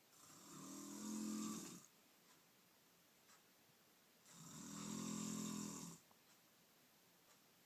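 A woman snoring: two long, pitched snores, about four seconds apart, each lasting under two seconds.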